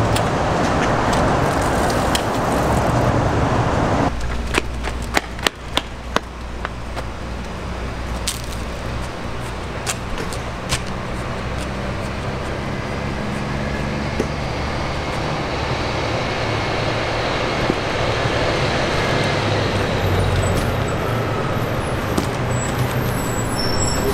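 Road traffic noise from passing cars, a steady rumble and hiss, with a cluster of sharp clicks about five seconds in.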